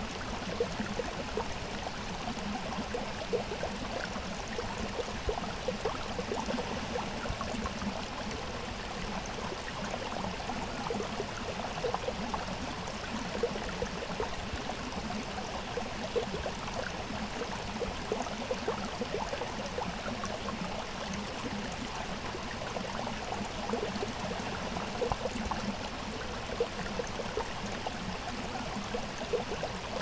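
Shallow, rocky creek below Munising Falls gurgling and babbling steadily over stones.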